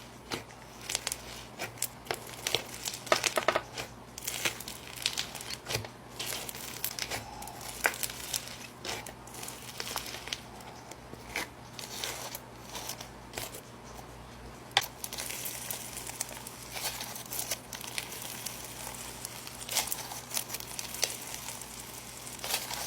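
Snow fizz slime being squeezed and stretched by hand, giving off a steady run of small irregular crinkling, crackling pops. The slime has a soft snow fizz texture.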